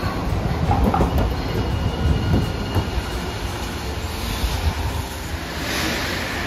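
Hiroshima Electric Railway tram passing close and moving off: a low rumble of wheels and motors with clacks over the rail joints that fades after a few seconds, with a faint high wheel squeal. A steady hiss comes up near the end.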